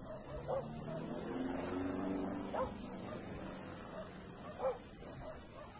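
A dog barking at night: three short barks about two seconds apart, over a low steady hum.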